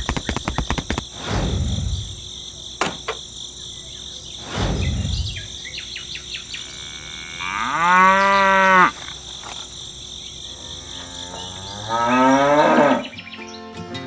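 A cow mooing twice in long, drawn-out calls, the second rising in pitch, over a steady high chirring of insects.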